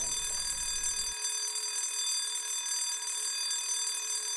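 A steady, high-pitched electronic tone made of several pitches at once, alarm-like and unchanging. A low background rumble under it cuts off abruptly about a second in.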